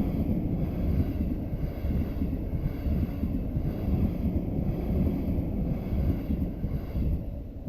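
A train running past on the Sobu Main Line, a steady low rumble with wind noise on the microphone, dropping off near the end.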